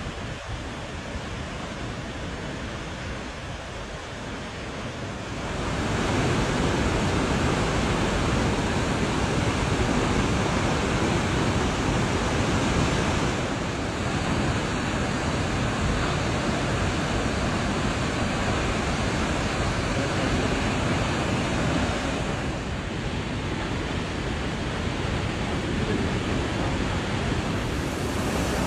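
Large waterfall's water pouring onto rock in a steady rushing noise, growing louder about five seconds in.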